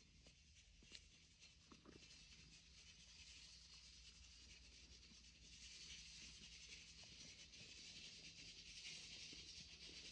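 Faint rustling of a hand stroking and rubbing a cat's fur, growing a little louder about halfway through.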